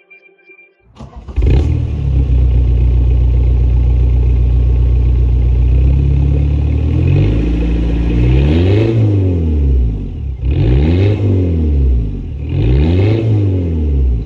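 Audi A4 Avant with a swapped-in VW ALH 1.9 TDI four-cylinder turbo diesel, heard at the tailpipe: the engine starts about a second in and idles steadily. Then it is revved three times, each rev rising and falling in pitch.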